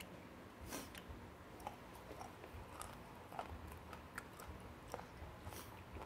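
A person chewing a mouthful of food, faint, with scattered soft mouth clicks and small crunches at an irregular pace.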